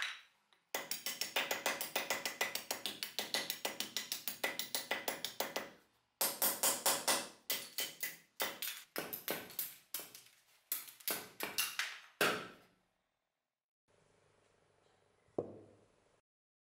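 Hatchet chopping thin strips of wood on a stump chopping block: a fast run of sharp chops, then slower, spaced strikes that stop about 13 seconds in. Near the end a faint steady hum is heard with a single knock.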